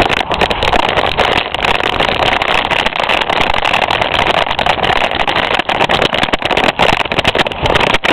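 Carrera Banshee mountain bike speeding down a rough dirt trail. There is a continuous rush of tyre and riding noise, with constant rattling clicks and knocks from the bike and camera jolting over the bumps.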